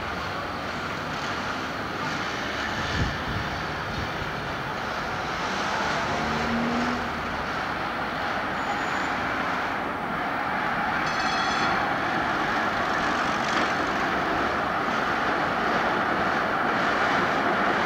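Street traffic with GVB articulated trams running along the tracks, growing louder near the end as a tram passes close by. Partway through there is a brief high ring.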